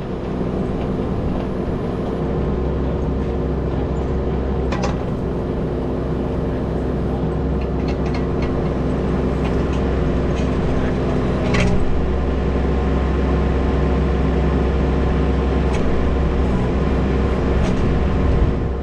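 Kubota U17 mini-excavator's diesel engine running steadily under load while the bucket works a cut slab of concrete loose, with two sharp knocks or scrapes of steel on concrete, about five seconds in and again, louder, around twelve seconds in.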